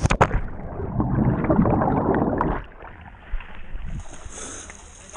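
A person hits the water of a canyon pool with a sharp splash, followed by about two seconds of churning, bubbling water that stops abruptly. The sound is muffled for most of the stretch.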